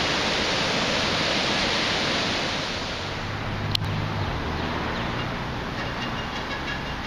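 Swollen, flash-flooded river rushing below a bridge: a loud, steady roar of water. About three seconds in it gives way to quieter running floodwater, with the low steady hum of an idling vehicle underneath and a single sharp click.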